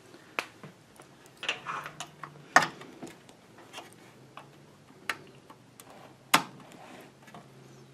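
Irregular sharp plastic clicks and taps from a Dell Latitude E6330 laptop's clips and casing being pried and handled, with a brief scraping stretch about one and a half seconds in; the two sharpest clicks come about two and a half and six seconds in.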